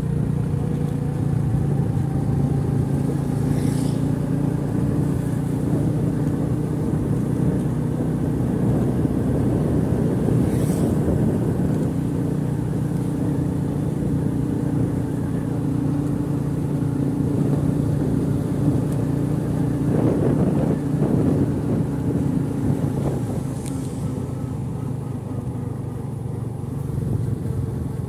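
Motorcycle engine running steadily at cruising speed, heard from on the moving bike with wind and road rumble. The sound drops a little near the end.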